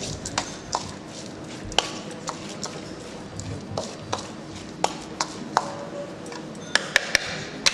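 Kitchen utensil clinking and knocking against cookware at irregular intervals as a cabbage-roll filling is mixed, some strikes ringing briefly, with a quick run of three sharp clicks near the end.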